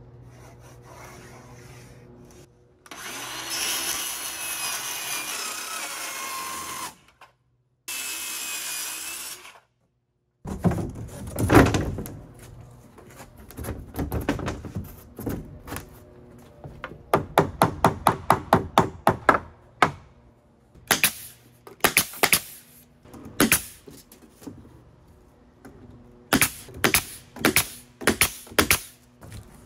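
Circular saw cutting a thin sheet panel in two short passes, with a wavering whine over the blade noise. Then sharp knocks and a long run of quick strikes as the panel is fastened down with a pneumatic nailer.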